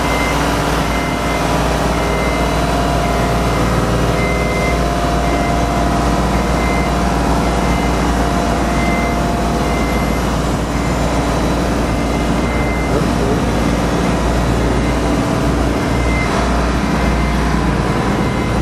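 The motor of an aerial work platform (lift) running steadily, with a high warning beep sounding on and off.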